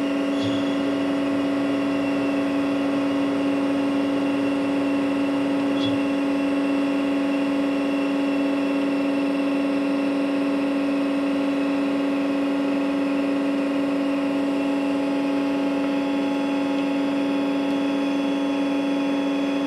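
TRAUB TND 200 CNC lathe running with a steady, unchanging machine hum carrying one strong constant tone, with two faint ticks, one near the start and one about six seconds in.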